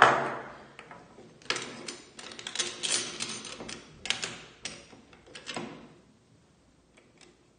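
Small pharmacy weights being picked out of their fitted weight box with tweezers: a run of light clicks and rattles, metal on metal. A sharp knock opens the sequence.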